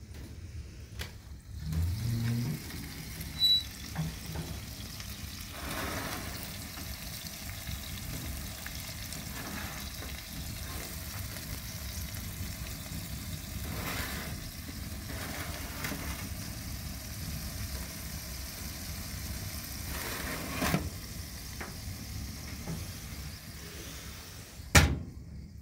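Steady sizzling from a tray of anchovies baking in a wood-fired cookstove oven, broken by a few knocks, with a sharp metallic clank near the end as the oven door is handled.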